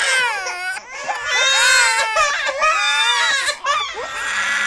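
Cartoon baby-animal crying: high, wavering wails and sobs voiced in a baby cry, breaking off briefly about a second in and again near the end.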